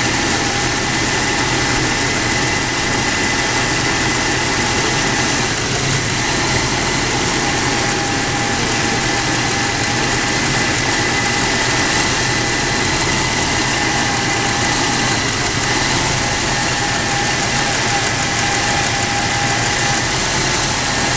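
1996 Jeep Cherokee XJ engine idling steadily while Seafoam is poured slowly into its open throttle body to break up carbon build-up blamed for spark knock.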